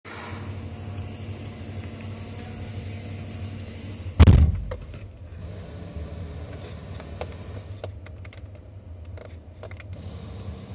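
A UD Quester truck's diesel engine idling with a steady low hum. There is a heavy thump about four seconds in, then a few short light clicks.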